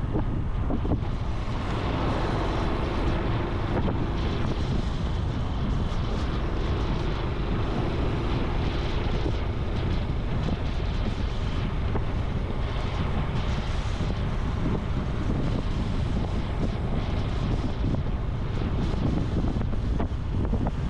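Honda Super Cub C125's single-cylinder four-stroke engine running under way, its exhaust note mixed with steady wind rush over the microphone.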